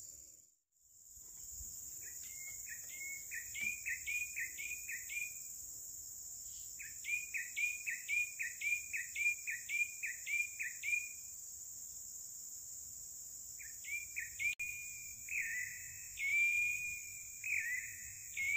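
A steady, high insect drone runs throughout, with three runs of sharp, repeated chirping calls at about two or three a second. The last run has longer, drawn-out notes.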